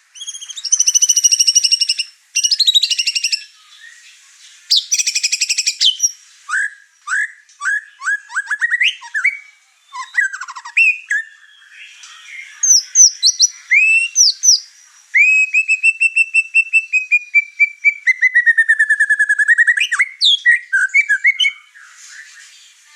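White-rumped shama (murai batu) in full song, running through its repertoire of learned phrases. It strings together fast repeated notes, quick up-and-down whistled strokes, and longer slurred whistles in the second half.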